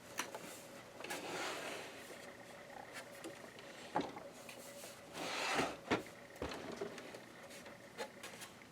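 Handling noise from working the front cover off a Janome ME4014 sewing machine: scraping and rubbing against the casing, with a few sharp clicks and knocks.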